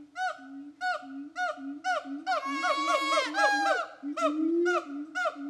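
Siamang gibbons calling: short whooping barks about twice a second over a low steady boom, building to a dense burst of overlapping calls in the middle before slowing again.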